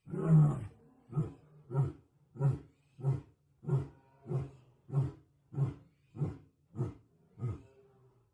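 Masai lion roaring: one full roar, then a run of about eleven short grunts a little over half a second apart, growing slightly weaker toward the end.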